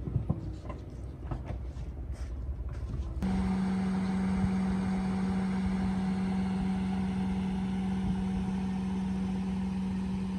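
A few light clicks and knocks, then, about three seconds in, a steady mechanical hum of one unchanging pitch starts abruptly and runs on.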